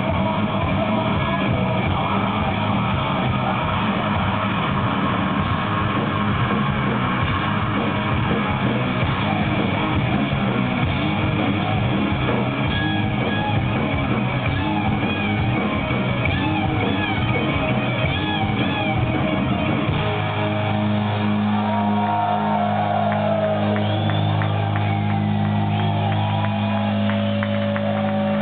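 Live stoner rock band playing loud: distorted electric guitars over bass and drums. About twenty seconds in the drumming drops away and the guitars and bass hold long, sustained notes.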